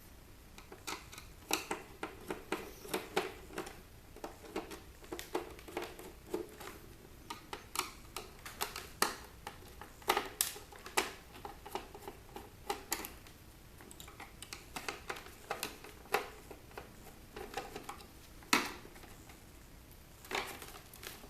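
Irregular clicks, taps and light rattles of small plastic and metal parts being handled while an electronic movie player is taken apart by hand.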